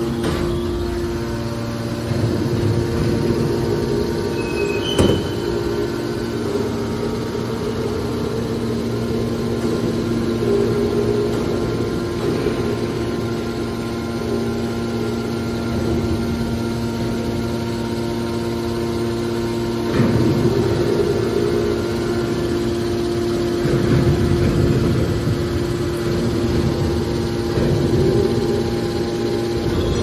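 Electric motors and hydraulic pumps of a scrap aluminium hydraulic baler running with a steady hum. A single sharp knock comes about five seconds in, and the sound swells louder for short stretches in the last third.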